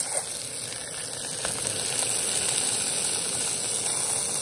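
Rainbow trout fillets frying in hot fat in a small pan, giving a steady high sizzle.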